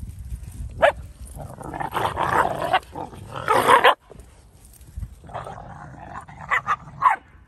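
Dalmatians play-fighting, barking and growling: one sharp bark about a second in, longer rough growly bouts around two and three and a half seconds, and a quick run of short barks near the end.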